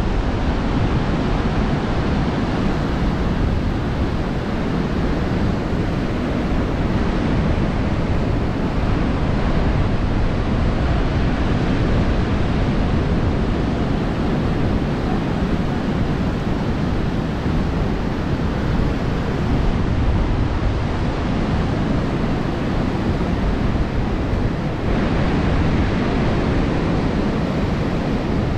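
Steady rush of sea surf mixed with wind buffeting the microphone.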